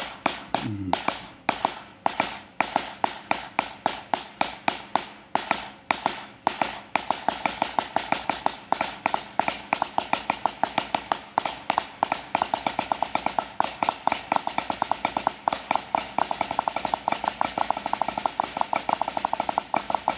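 Snare drum played with sticks: a steady pattern of double strokes, loud accents among softer notes, gradually speeding up until the strokes run close together.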